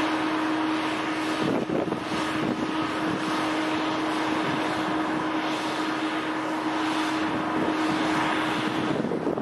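Cessna 172's piston engine and propeller running at low taxi power, with gusty wind rumbling on the microphone. A steady hum fades out about a second and a half in.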